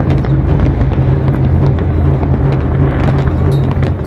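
Fireworks display in a dense barrage: a continuous low rumble of overlapping bursts with many sharp crackles on top.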